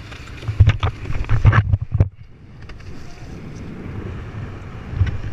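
Wind buffeting an action camera's microphone on a kitefoiler riding over water, with splashing at the board. Loud gusts with sharp cracks in the first two seconds, then a quieter steady rush, rising again near the end.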